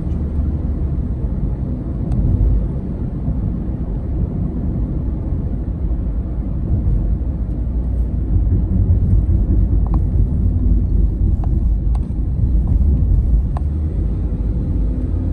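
Car cabin noise while driving: a steady low rumble of tyres and engine, with a few faint light ticks in the second half.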